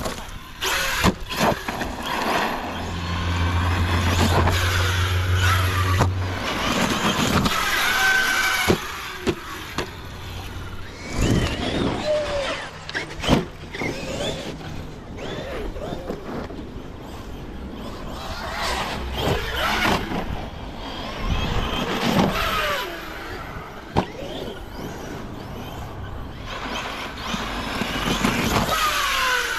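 Electric Arrma RC trucks driving on grass, their brushless motors whining up and down with the throttle. Sharp knocks come several times as the trucks land and tumble.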